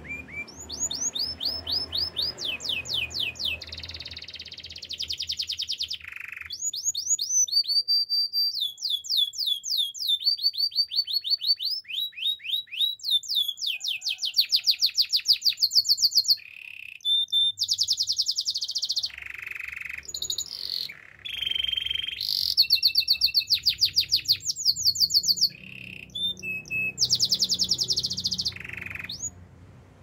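Domestic canary singing a long song of rapid trills. Each phrase is a fast run of one repeated sweeping note, and the note changes from phrase to phrase, with short breaks between.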